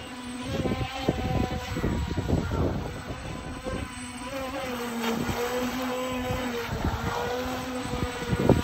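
UDI RC UDI005 brushless RC speedboat running on the water: the motor's steady whine shifts up and down in pitch as the throttle changes, over irregular low rumbling thumps.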